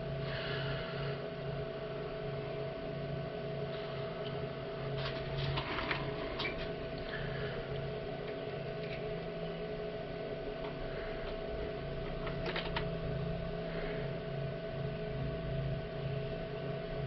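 Steady machine hum with a low tone that pulses evenly, from shop machinery at the lathe. A few light metallic clicks come about five, six and twelve seconds in, as small brass parts are handled on the lathe.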